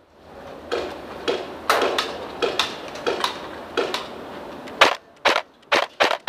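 Airsoft gunfire: about a dozen sharp single cracks at irregular intervals, several louder ones coming in quicker succession near the end.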